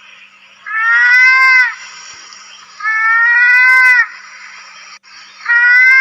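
Mouse-deer calls: three identical high, drawn-out cries, each about a second long with a nearly level pitch that dips at the end, repeating about every two seconds over a steady hiss.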